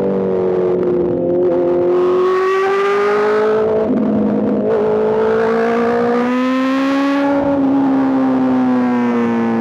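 Honda CBR650R's inline-four engine through an Arrow Race-Pro exhaust, pulling under throttle while riding. The pitch climbs, drops sharply about four seconds in, climbs again and eases down after about seven and a half seconds.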